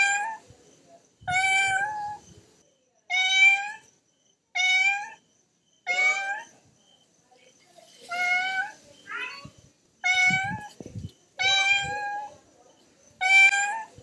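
A cat meowing over and over: about nine short meows, roughly one every second and a half.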